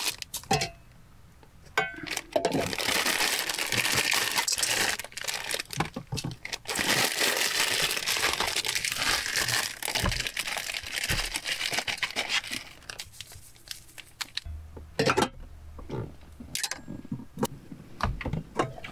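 Plastic ramen noodle wrapper crinkling as it is torn open and handled, a dense crackle with many small clicks. The crackle thins out after about twelve seconds, leaving a few scattered clicks and knocks near the end.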